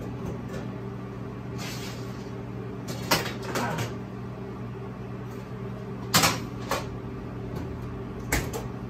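Gas range oven door opened and a metal baking tray pulled out and set on the stovetop: a few sharp metal clunks and clicks, the loudest about six seconds in, over a steady low hum.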